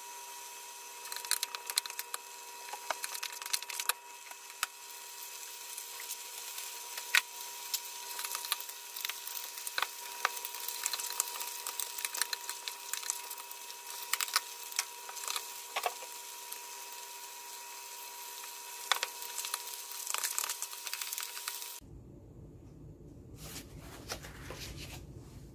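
Ground beef sizzling and crackling in a saucepan, with a wooden spoon scraping and stirring it. About 22 seconds in, the sizzle cuts off and gives way to a quieter room sound with a few soft knocks.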